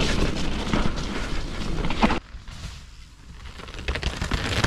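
Mountain bike riding down a wet dirt trail: tyres rolling over mud and leaves with wind rumble on the bike-mounted camera's microphone. About two seconds in this cuts off suddenly to a quieter sound, and the bike's tyre noise grows louder again as it approaches near the end.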